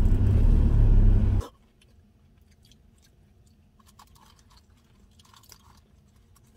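Car road noise, a loud low rumble, which cuts off suddenly about a second and a half in. Then faint chewing and small mouth clicks of someone eating.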